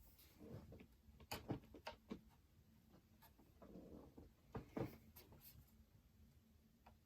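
Faint, scattered clicks and taps of small computer parts being handled, with a soft rustle about four seconds in.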